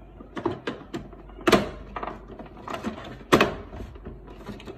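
Plastic knocks and light clicks from the Canon LBP 6000 printer's cover as it is handled and pressed into place, with two louder knocks about a second and a half in and again after three seconds.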